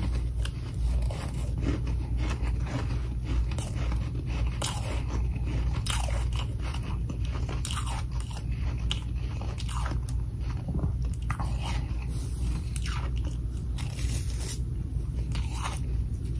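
Close-miked chewing of mouthfuls of powdery humidifier freezer frost: a run of irregular, crisp crunches as the ice is bitten and ground between the teeth, over a steady low hum.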